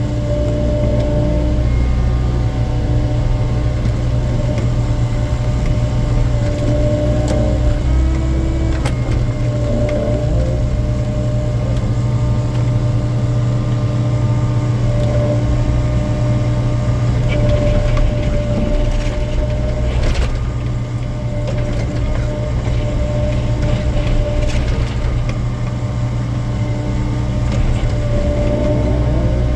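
Hydraulic excavator's diesel engine running steadily under load, its hum shifting slightly in pitch as the boom and bucket work. Concrete rubble clatters in several sharp knocks about two-thirds of the way through.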